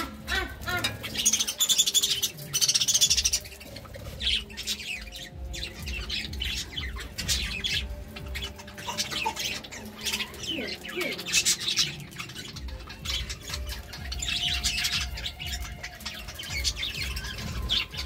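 Several budgerigars chattering and warbling in uneven bursts of fast twittering and squawks. The loudest stretch comes about one to three seconds in.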